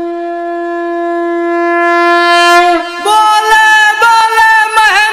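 Instrumental intro of a devotional song: a wind instrument with a bright, many-overtoned tone holds one long note for nearly three seconds, then plays a quick melody of short notes with bends and slides.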